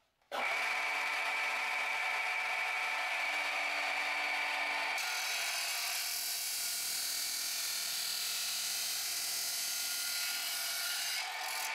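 Abrasive cut-off saw with a 400 mm by 3.5 mm disc switched on about a third of a second in, its motor running with a steady whine. About five seconds in the disc bites into a steel bar and adds a harsh grinding hiss, fed at the speed chosen to cut without melting the metal. The hiss stops shortly before the end, leaving the motor running.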